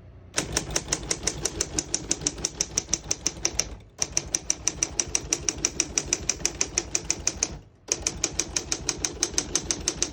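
1953 R.C. Allen Model 700 manual desktop typewriter being typed on rapidly and evenly, about nine key strikes a second. The typing comes in three runs, broken by short pauses about 4 and 8 seconds in.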